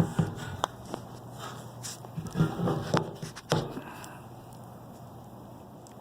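Scattered light knocks and handling noises, with a low steady hum that fades out about four seconds in.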